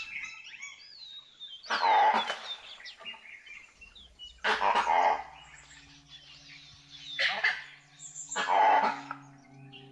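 Four harsh, bark-like animal calls, two to three seconds apart, over thin bird chirps. A low, steady musical drone comes in partway through.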